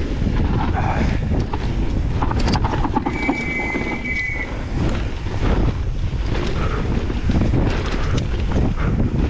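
Wind buffeting the microphone of a camera riding down a downhill mountain-bike trail, with the clatter and knocks of the bike over rough ground. A short high squeal comes about three seconds in.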